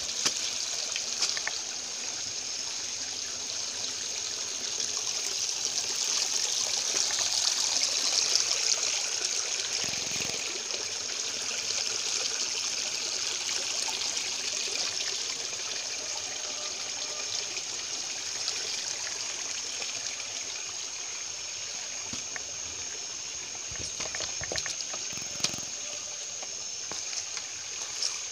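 Shallow river water running and trickling over rocks, steady throughout and a little louder a few seconds in, with a few faint knocks.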